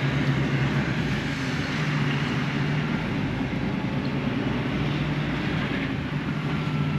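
Inside a DAF XF truck cab on the move: the diesel engine's steady low hum with road and tyre noise.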